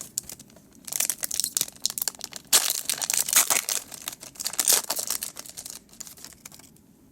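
A Pokémon card booster pack being torn open, its foil wrapper crinkling and crackling, loudest in the middle and dying away about six seconds in.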